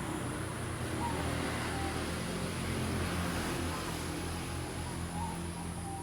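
Steady low rumble and road noise of a moving vehicle, with a few faint short chirps over it.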